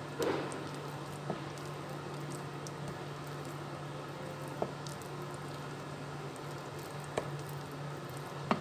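A spoon stirring thick, lumpy batter in a ceramic bowl: soft wet squishing, with a few light clicks of the spoon against the bowl, the sharpest just after the start and near the end. A steady low hum runs underneath.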